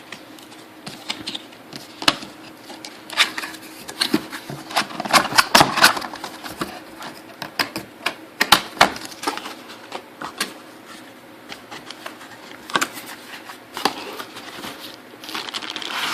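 Irregular clicks, taps and rustles of a 12-channel audio mixer and its packing being handled, busiest about a third of the way in and again past the middle.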